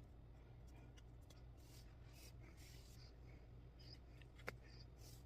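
Faint scratchy rustling of thread being drawn through a cross-stitch canvas, with a light click about a second in and a sharper one near the end, over a low steady hum.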